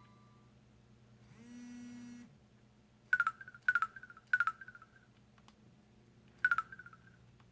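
Samsung Anycall SPH-W3000 mobile phone's key-press beeps: four short click-and-tone beeps as its menu is stepped through, after a low buzz lasting under a second about a second and a half in.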